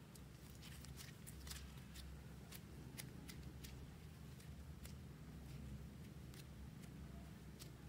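Grainy green glitter slime being squeezed and kneaded by hand, giving faint, irregular crackles and clicks as it folds and pulls apart.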